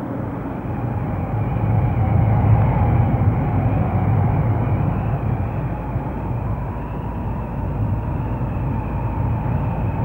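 A steady low rumbling noise that starts abruptly and runs on evenly, with no clear pitch or rhythm.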